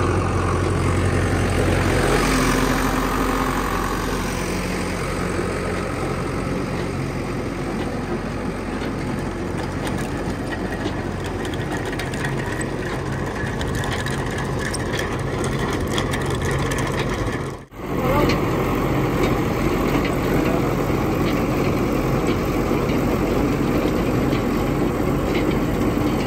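Tractor engine running steadily as it drives a trenching machine digging a pipeline trench. The sound drops out for a split second about two-thirds of the way through, then carries on unchanged.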